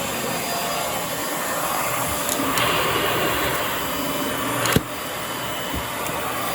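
Hoover Air Steerable upright vacuum running steadily, with one sharp click nearly five seconds in.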